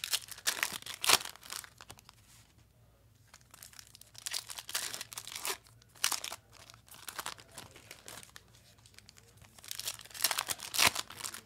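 Trading-card pack wrappers being ripped open and crinkled by hand: irregular tearing and crackling bursts, loudest about a second in and again near the end.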